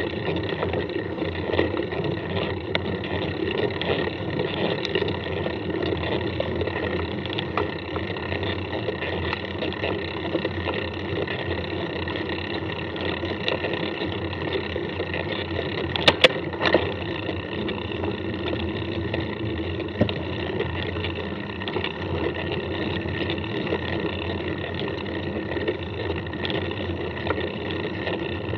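Steady running noise of a mountain bike being ridden, with a brief sharp clatter about sixteen seconds in.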